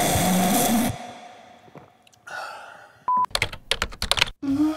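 A loud, drawn-out slurp from a mug ends about a second in and trails away. About three seconds in a short beep sounds, followed by a rapid run of sharp glitchy clicks from an animated logo sting.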